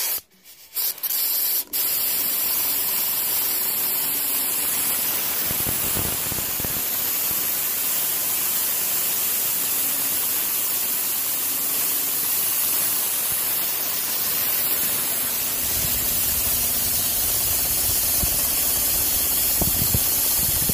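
Compressed air hissing steadily from the airline feeding a small single-cylinder oscillating model steam engine. It comes on in a couple of short bursts, then runs unbroken from about a second in.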